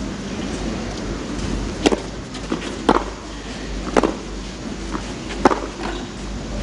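Tennis rally on clay: a ball struck back and forth by rackets, four sharp hits about a second apart, over the steady low hum of the arena.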